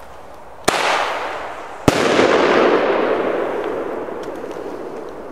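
A 1999 flower cascade firework: two sharp bangs about a second apart, the second louder, each followed by a long hiss that slowly fades.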